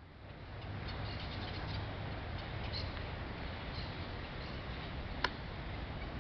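Outdoor ambience: a steady low rumble with a few faint, short, high bird chirps, and one sharp click about five seconds in.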